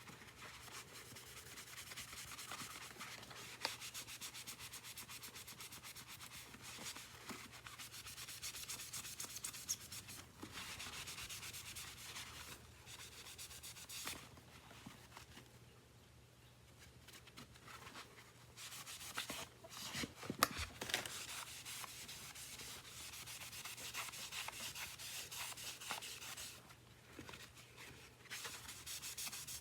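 Rapid back-and-forth hand scrubbing on the housing of a Miele stick vacuum, rubbing grime off its surface; the strokes ease off for a few seconds about halfway through, then pick up again.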